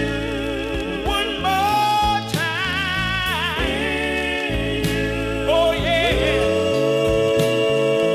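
Gospel quartet recording: male voices holding long notes with vibrato in harmony over bass and drums.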